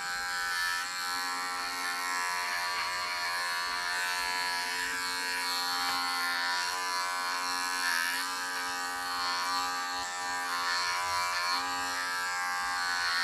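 Electric pet clippers running with a steady buzzing hum whose pitch wavers slightly, trimming the hair on a dog's back foot.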